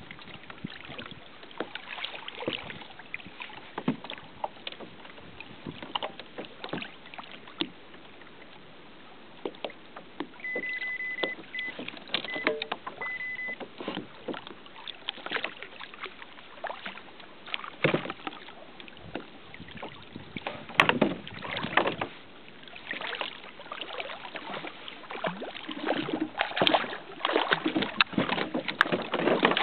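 Water slapping and splashing against a fishing kayak's hull, with scattered short knocks and clicks, getting busier and louder near the end. A few short high beeps come about a third of the way in.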